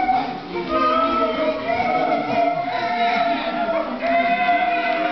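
Voices singing together, with several long held notes.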